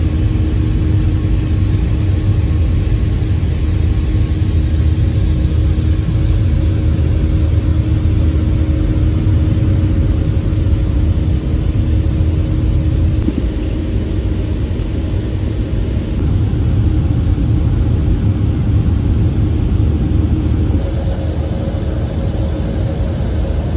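Boeing 737-500 cabin noise during climb-out, heard from a seat beside the wing: a steady drone of the CFM56-3 turbofans and rushing air, with a low rumble and a faint steady hum over it. The level eases slightly a little past halfway.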